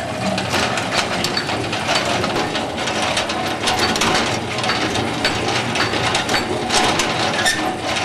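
Antique washing machine's drive mechanism running: gears, chain and linkages clattering steadily with many clicks and knocks.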